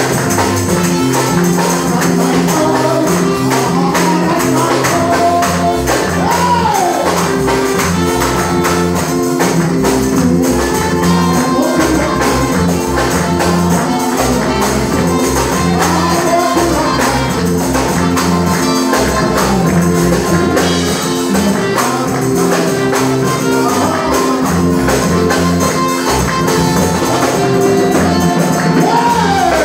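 Live gospel music: an electronic keyboard plays sustained chords over a bass line while a tambourine jingles throughout, with voices singing along.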